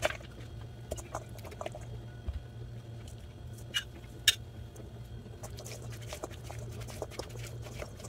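Chopped vegetables, chickpeas and spices tipped from dishes into a stainless steel mixing bowl, with a few sharp clinks of dishes against the bowl, the loudest about four seconds in. From about five seconds on, a run of soft quick clicks and scrapes as the mixture is stirred in the bowl, over a low steady hum.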